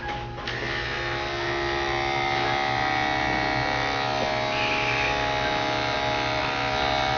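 Electric dog grooming clippers running with a steady buzz, switched on about half a second in, shearing matted fur around a dog's head.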